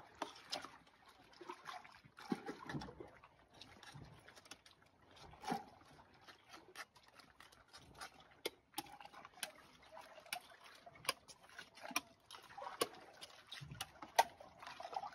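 A metal spoon scraping and clicking against the inside of an opened sea urchin shell as the roe is scooped out, with soft eating sounds. Quiet throughout, with sharp little clicks coming more often in the second half.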